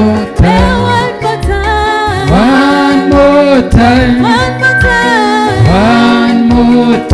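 Rumba-style gospel worship music playing loudly, with a steady bass line under sliding, bending melody lines and no sung lyrics.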